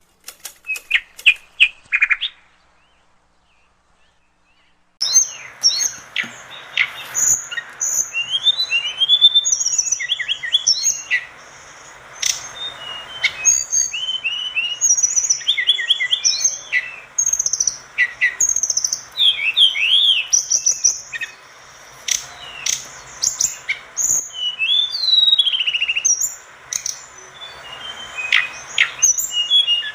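Tledekan gunung songbird singing: a few short chirps, a pause of about three seconds, then from about five seconds in a rapid, unbroken run of high whistles, trills and sweeping notes.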